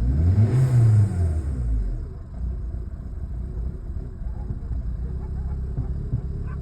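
Hyundai Accent engine running with a rough, uneven idle. Its pitch rises and falls over the first couple of seconds, then it settles into a lumpy low idle, even though the spark plugs, plug wires, injectors and MAF sensor have been replaced.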